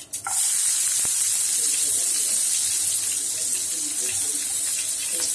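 Small onions hitting hot oil with spluttered mustard seeds in a pan, setting off a loud, steady sizzle that starts suddenly about a third of a second in.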